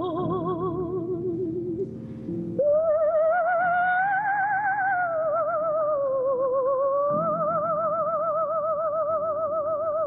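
A soprano sings a wordless line with wide vibrato. A low held note breaks off about two seconds in. A higher note then enters, climbs, sinks back and settles into a long held tone over a faint low drone.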